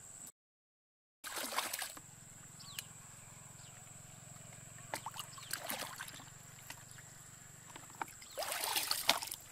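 Water splashing and sloshing in three short bursts as a plastic bucket and hands move through shallow muddy water, over a steady high-pitched whine. The sound cuts out completely for about a second near the start.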